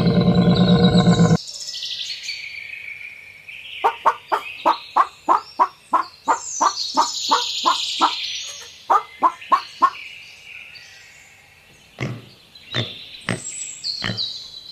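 Birds chirping and trilling, with an even run of short clucks, about three a second, from about four to ten seconds in. A loud, low animal call cuts off about a second and a half in.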